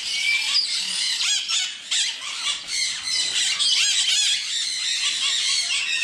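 Many caged parrots, monk parakeets and conures among them, calling at once: a constant chatter of short, shrill squawks and chirps that slide up and down in pitch and overlap one another.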